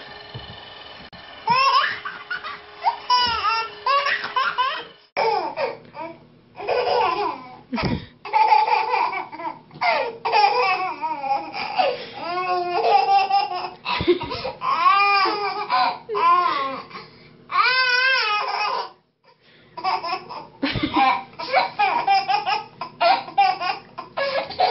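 Babies laughing and squealing in repeated bouncing bursts of giggles, with a short break about three-quarters of the way through.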